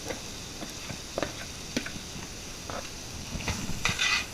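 Diced onions sizzling in a little leftover oil in a hot pan, with scattered light clicks, then a spoon starting to stir and scrape the pan near the end.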